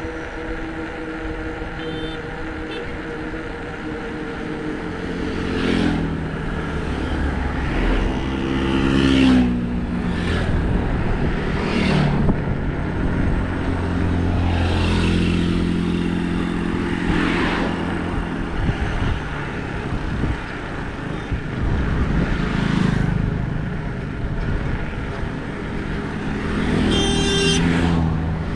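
Motor vehicle engines running, their pitch rising and falling several times, over steady road and tyre noise.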